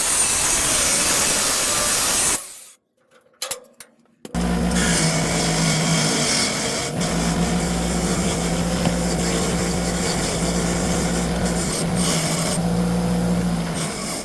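Power grinder grinding through the welds that hold a brake adjuster onto a race car's frame. There is a steady metal-on-metal rasp and the motor's drone. It stops about two seconds in, a couple of light knocks follow, and it starts again and runs on to near the end.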